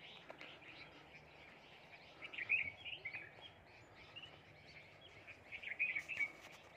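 Small birds chirping faintly, short high chirps coming in a few clusters, over a faint outdoor hiss.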